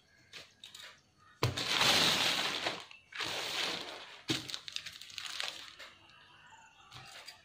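Cloth rustling as it is handled and smoothed out, in three bursts of rustle starting about a second and a half in, with a few faint clicks before them.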